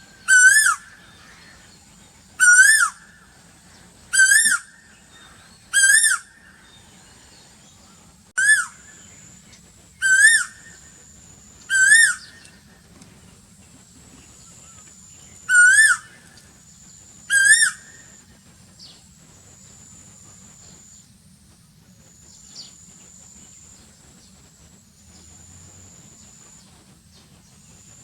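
Asian koel calling: a loud, clear note repeated nine times, about every two seconds, each rising and then dropping. The calls stop about two-thirds of the way through, leaving only faint high background tones.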